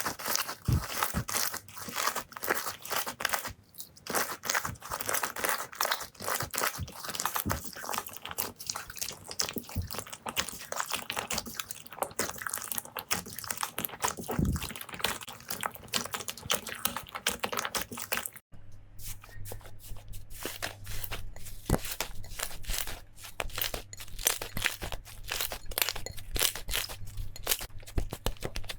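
Slime being squeezed and worked by hand, giving dense crackling and popping. About two-thirds through it cuts abruptly to another clip of the same kind, with a low hum underneath.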